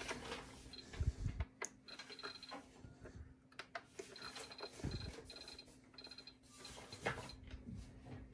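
Philips Airfryer XXL digital air fryer's control dial being turned to set temperature and time, giving several quick runs of faint high electronic ticks, with a couple of dull knocks and a faint steady hum underneath.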